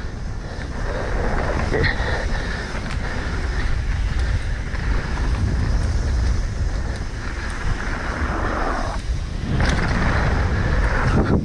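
Specialized Enduro mountain bike running fast down a dirt jump trail: steady tyre roar and wind noise on the microphone. The noise drops away briefly about nine seconds in and again near the end.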